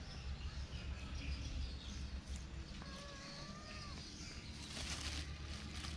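Quiet outdoor background with a low rumble. About three seconds in comes a faint animal call, one steady pitched note lasting about a second.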